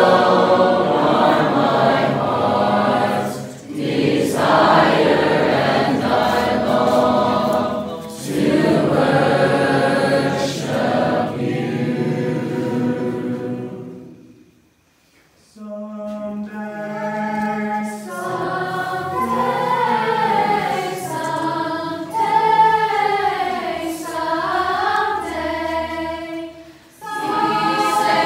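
A group of people singing together as a choir. One song ends about halfway through, and after a pause of about a second the group starts a new song.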